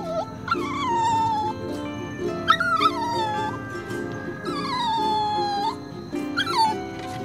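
Puppy whining: three drawn-out whines, each sliding down in pitch and lasting about a second, then a short one near the end, over soft background music.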